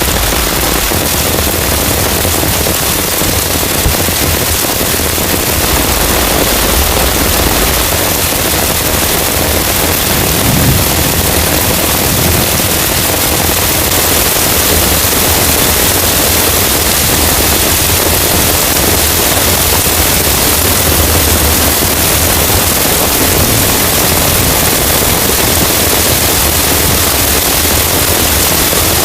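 Heavy rain falling steadily, a dense unbroken hiss of drops.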